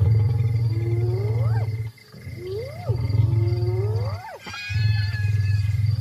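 Lions growling over an elephant carcass: three long, deep rumbles with short breaks, overlaid by three rising, whining snarls that climb and then break off sharply.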